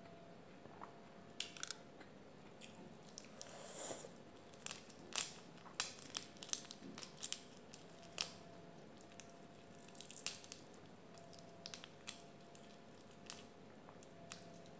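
Cooked prawn shells being cracked and peeled apart by hand: scattered sharp little cracks and clicks, mixed with chewing.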